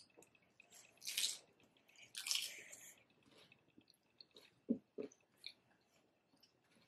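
Quiet chewing and mouth sounds from eating loaded nachos: two soft, hissy bursts in the first few seconds, then a few faint clicks.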